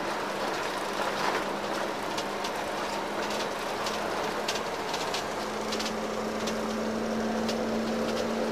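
Engine and road noise heard from inside a moving bus in traffic: a steady low engine hum under constant road noise, with scattered light rattles.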